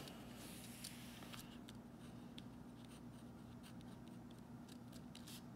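Pen writing on paper: faint, short scratching strokes, over a faint steady hum.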